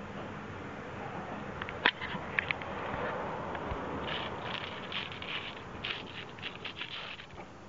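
Fingertips and nails scratching and scraping on a rough concrete patio tile in a quick run of short strokes, a teasing play sound for a kitten. A few sharp clicks come a couple of seconds before the scratching starts.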